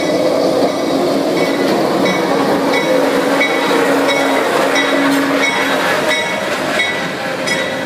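A 45-ton diesel switcher locomotive passing close by as it pulls away: its engine runs and its wheels roll over the rails with a dense clatter. Short high metallic tones come again and again, and a steady low tone fades out about six seconds in.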